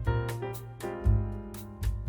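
Background music: piano or keyboard chords over a bass line, with a steady beat of crisp percussion.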